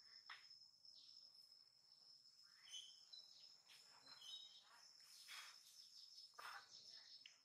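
Faint outdoor ambience: a steady high-pitched insect drone, with a few short bird chirps in the middle.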